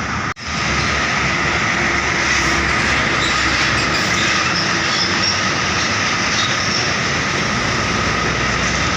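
Steady, loud roar of heavy road traffic, with a faint high ringing over it. The sound drops out for an instant about a third of a second in, then runs on unchanged.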